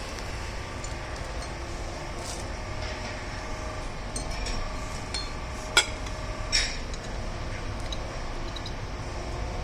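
Metal clinks and taps as a manual starting wheel is fitted by hand onto the flywheel hub of a 9 hp diesel engine. One sharp metallic click about six seconds in, and a brief rattle just after, over a steady low rumble.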